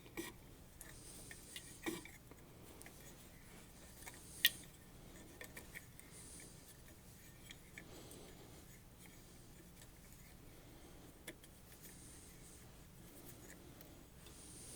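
Faint scattered clicks, taps and light scraping of small metal tools and parts being handled, with one sharp click about four and a half seconds in.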